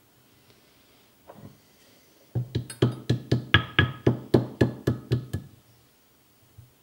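Copper-faced mallet tapping a small fitting into the cast apron of a Myford ML7 lathe: about a dozen light, quick taps, roughly four a second, each with a short metallic ring. The run starts about two seconds in after a faint knock.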